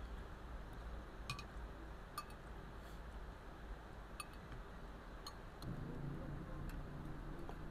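Faint, scattered clinks of spoons against bowls while eating, about six light taps several seconds apart. A low steady hum comes in near the end.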